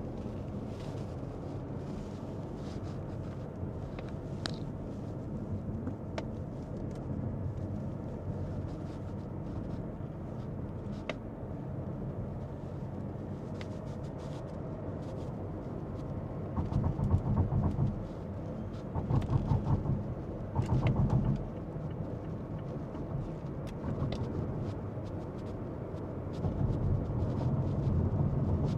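A car driving along, with a steady low rumble from engine and road. It grows louder in several stretches over the second half.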